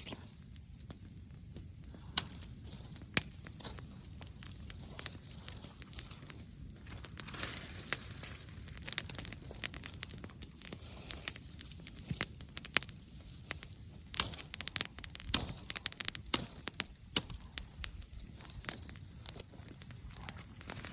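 Wood bonfire crackling, with many irregular sharp pops.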